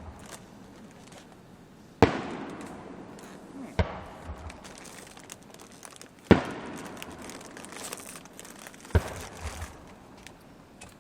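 Aerial fireworks shells bursting: four loud booms a few seconds apart, each trailing off in a rolling echo, with faint crackling in between.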